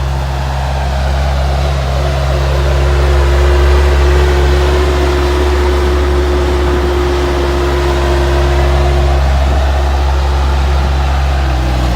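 Bobcat S130 skid steer's diesel engine running steadily, with a thin steady whine over it that stops about nine seconds in.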